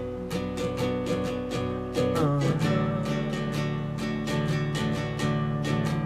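Acoustic guitar strummed with steady downstrokes, about four a second, in a simple three-chord pattern; the chord changes a little over two seconds in.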